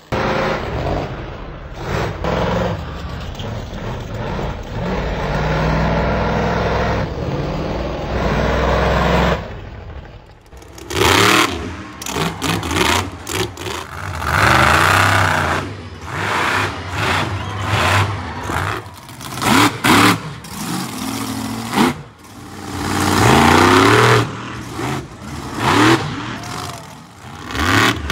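Monster truck engines revving hard, the pitch repeatedly climbing and dropping. About ten seconds in the sound changes to a run of short, abrupt cuts with loud surges every second or two.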